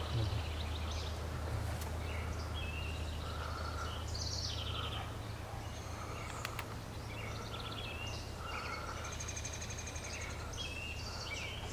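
Wild birds chirping and trilling in woodland over a steady low hum, with a series of short mid-pitched calls about once a second.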